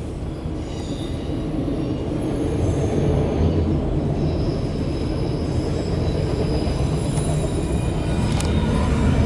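Loaded autorack freight cars rolling past with a steady low rumble of wheels on rail. Faint high wheel squeal comes and goes over it.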